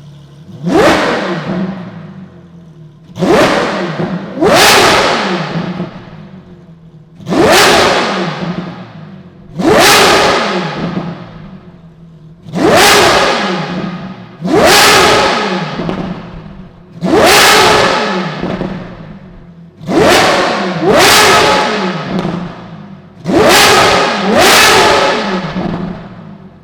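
Ferrari LaFerrari's V12 breathing through a straight-piped RYFT titanium exhaust, revved about a dozen times in quick blips. Each blip climbs sharply and falls back to idle between revs.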